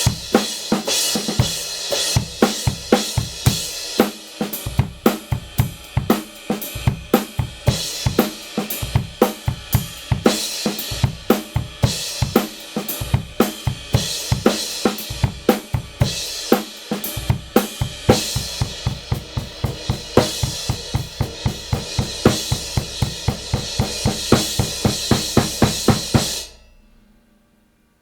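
Drum kit played in a steady groove, snare, bass drum and hi-hat under the bright wash of a Kingdo Artist Dark 16-inch crash cymbal. The playing stops suddenly near the end and the cymbal fades out quickly.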